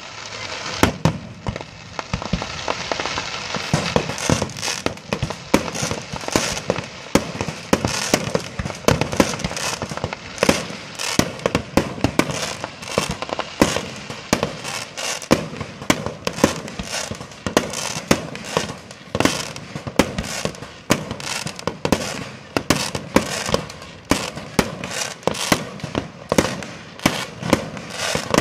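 Aerial fireworks display: a rapid barrage of shell bursts, several bangs a second, getting denser from about four seconds in.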